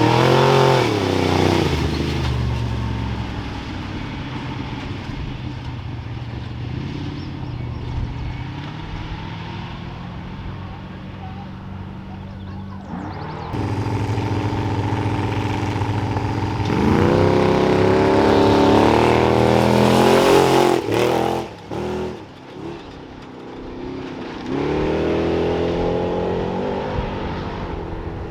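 Off-road race vehicles revving and accelerating hard away from a race start, one after another. The engine pitch climbs as a vehicle pulls away near the start, again about two-thirds in, and once more near the end, with steady engine running between.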